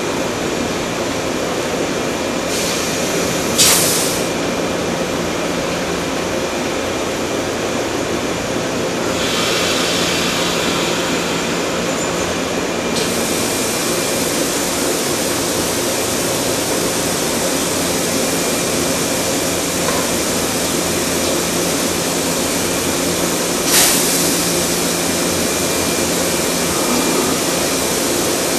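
Shinano Railway 115-series electric train running its equipment at the platform with a steady hum and low tone, then pulling out. Two short hisses of air come about 3.5 seconds in and again near 24 seconds.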